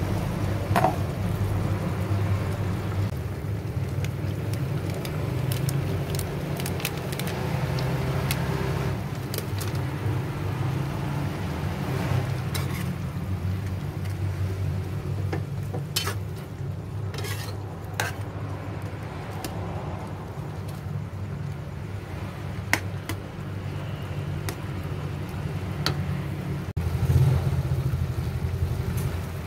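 Sliced eggplant cooking in a little water in a pan, sizzling and bubbling, while a spatula stirs and scrapes against the pan with scattered clicks. A steady low rumble runs underneath.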